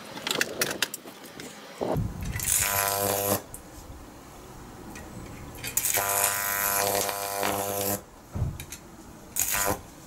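High-voltage electric arc from a microwave oven transformer, buzzing and hissing between two bare wire electrodes: a burst of about a second, then one of about two seconds, with a low mains-frequency buzz under a crackling hiss. Short snaps and clicks come between the bursts.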